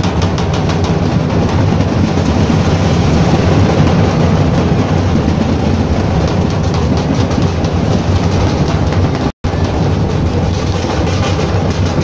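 Dhol-tasha troupe playing close by: a loud, dense, unbroken wall of drumming, the deep dhol beats under rapid tasha strokes. The sound cuts out for an instant about nine seconds in.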